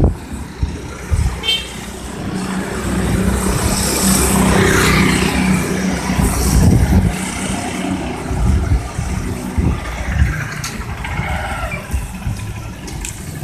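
Small motorcycles riding past on a wet street, their engines running, with a hiss from the traffic loudest about four to five seconds in.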